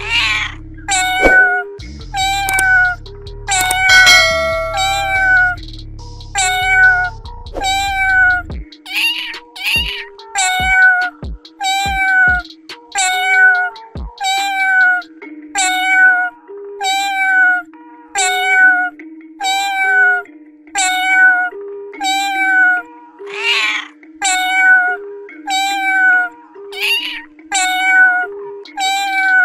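Music built from repeated cat meows: a short falling meow about once a second over a steady stepping bass line. A low rumble under it stops about a third of the way through.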